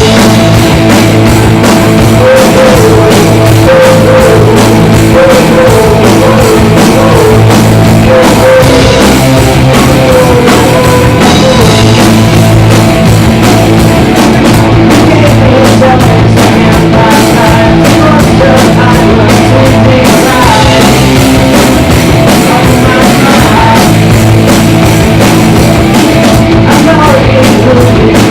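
Garage rock band playing live, loud and continuous, with a drum kit keeping time under guitar lines.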